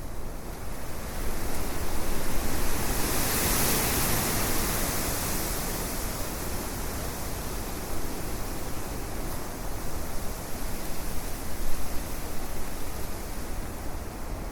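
A steady outdoor rushing noise, swelling and brightening about three seconds in, then easing into an even rush.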